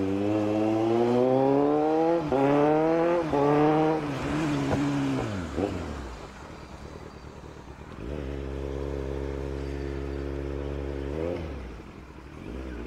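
Kawasaki Z900's inline-four engine accelerating hard through two upshifts, the pitch climbing and dropping back at each shift, then falling away as the bike slows, with a couple of short throttle blips. After a quieter stretch it holds a steady note for a few seconds, with a brief rev and drop near the end.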